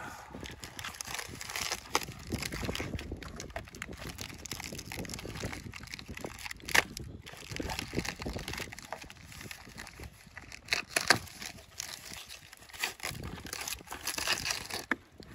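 Plastic bags and paper packing rustling and crinkling in a cardboard shipping box as bare-root chestnut seedlings are unpacked, with several sharp clicks and snaps, the loudest about seven and eleven seconds in.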